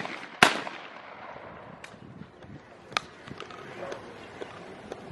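Shotgun shots on a clay shooting range: one loud shot about half a second in, echoing, then two fainter, more distant shots about two and three seconds in.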